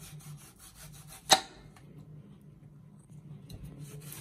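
Kitchen knife sawing back and forth through a dragon fruit's skin and flesh, a quick run of rasping strokes broken by one sharp knock of the blade on the cutting board about a second in. The sawing starts again near the end.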